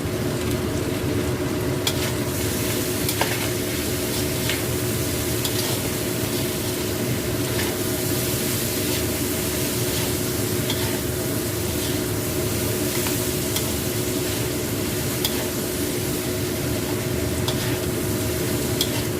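Food sizzling as it stir-fries in a pan, stirred with a spatula that taps and scrapes the pan now and then, over a steady low hum.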